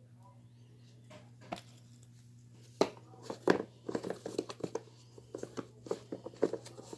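Handling noises from a new shoe and its packing as it is tried on: crinkling rustles and a string of light knocks and taps that start about three seconds in. A steady low hum runs underneath.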